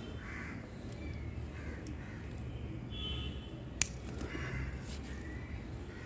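A crow cawing three times, with a single sharp click about four seconds in, the loudest sound, over a low handling rumble.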